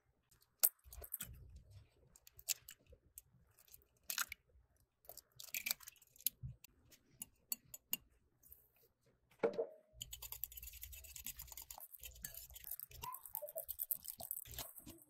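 Eggs being cracked into a bowl, with scattered sharp taps and cracks, then a small metal wire whisk beating eggs and sugar against the bowl: a fast, steady clicking and scraping from about ten seconds in, while half-and-half is poured in.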